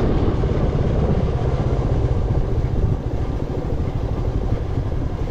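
Motorcycle engine running steadily with a dense low rumble, as heard while riding.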